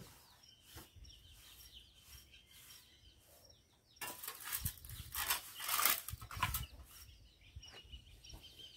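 Broom sweeping chicken droppings into a long-handled dustpan on a concrete floor: a run of scraping strokes about four seconds in, lasting a couple of seconds. Faint high chirping goes on in the background.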